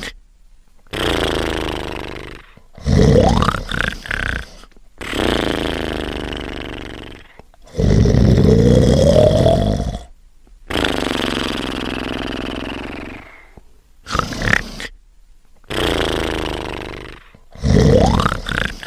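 Cartoon snoring sound effect: loud rasping snores, some with a rising whistle in them, alternating with softer breathy exhales, repeated over and over with short silent gaps between breaths.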